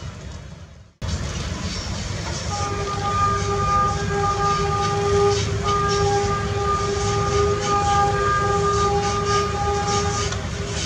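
Diesel-electric locomotive's horn sounding one long chord, held about eight seconds with a short break near the middle, over the low rumble of the locomotive running light along the track.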